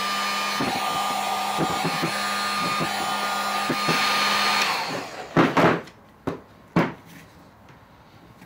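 Handheld electric heat gun blowing steadily with a high whine, softening a plastic snowmobile hand grip so its end can be folded over. A little past halfway it is switched off and winds down, followed by a few sharp knocks and handling sounds.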